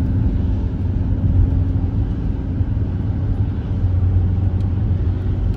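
Steady low rumble of a car driving on a wet road, heard from inside the cabin: engine and tyre noise with no change in pace.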